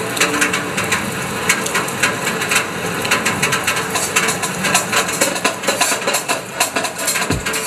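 Rapid, irregular clattering knocks and clicks, with deep bass thuds coming in near the end.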